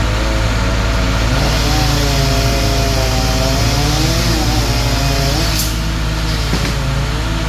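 An engine running steadily with a loud low drone and a wavering pitch, with faint voices under it. There is a brief sharp sound about five and a half seconds in.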